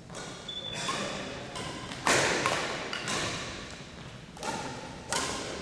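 Badminton rally on a wooden gym floor: a run of sharp smacks from rackets hitting the shuttlecock and feet landing, about eight in all, the loudest about two seconds in. Each smack rings briefly in the hall, and sneakers squeak briefly between them.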